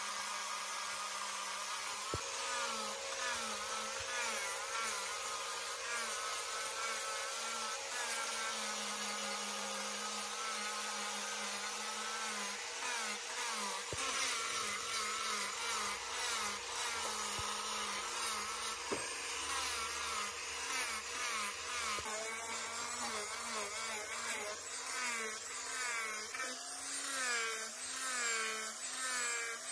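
Small electric angle grinder with a sanding disc, sanding the rough outer shell of a buffalo horn. Its motor whine keeps dipping and rising in pitch as the disc is pressed on and eased off the horn. In the second half this settles into a pulsing about once a second.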